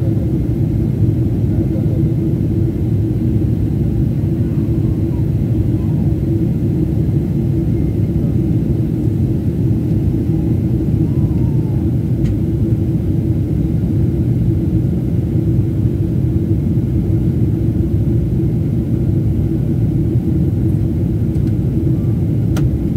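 Steady low rumble of an airliner cabin in flight: engine and airflow noise heard from inside the plane.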